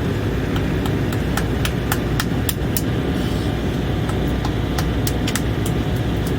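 Steady cabin noise of an Embraer E190 airliner in flight: the drone of the engines and the airflow, heaviest in the low range. A dozen or so light clicks or rattles come at irregular intervals over it.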